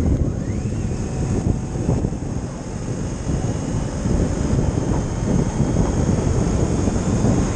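Riding a motorcycle: wind rushing over the microphone with the engine running underneath, a steady low rumble. It eases off a little about two to three seconds in, then picks up again.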